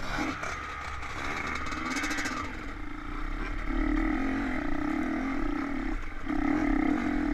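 Two-stroke dirt bike engine heard from on the bike, running at high revs; its note settles into a steady pitch about halfway in, breaks off briefly about six seconds in, then picks up again.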